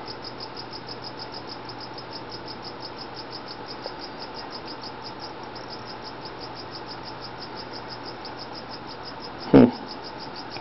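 Cricket chirping steadily: a fast, even run of high chirps, several a second, without a break. A short louder sound cuts in briefly about nine and a half seconds in.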